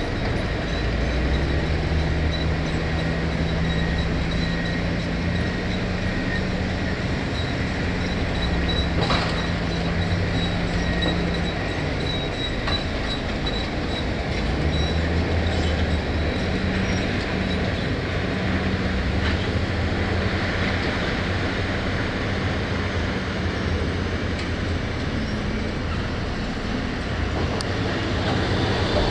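Heavy diesel earthmoving machine working, its engine running loud and steady with the engine note shifting up and down every few seconds as the load changes, over a faint high whine.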